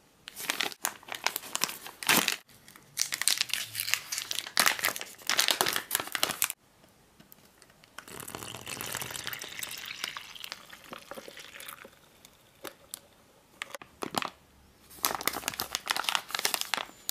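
Crinkling of a plastic MRE beverage pouch for chocolate dairy shake powder as it is handled and worked open, in several loud bursts. A softer rustle in the middle, then more crinkling near the end.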